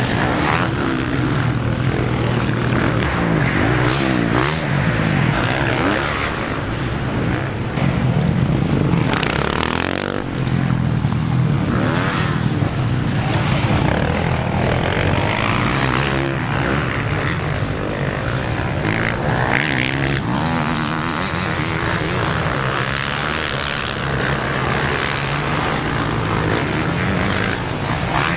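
Motocross bikes of the 250–450 cc class racing, their engines revving up and down continuously as the riders accelerate, shift and back off through the track's climbs and turns.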